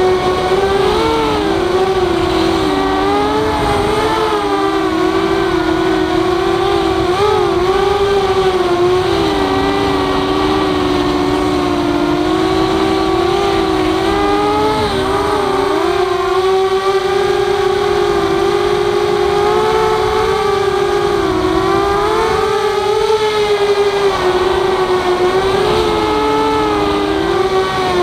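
Walkera F210 racing quadcopter's brushless motors and propellers whining at close range. The pitch wavers up and down and splits into several close tones as the throttle changes between motors through turns.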